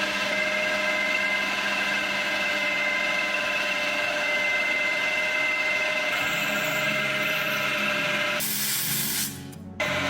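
A power tool's motor running steadily with a constant whine over hiss. About eight and a half seconds in there is a short burst of harsher hiss and a brief drop in level, then the steady running returns.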